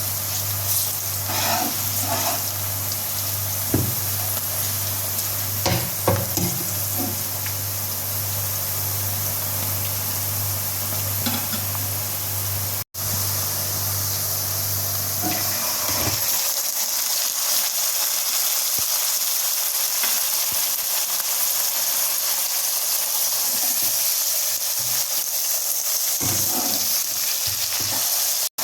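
Food frying in oil in a pan: a steady sizzle, with a few clinks of a utensil against the pan in the first several seconds. A low hum under it stops about two-thirds of the way through.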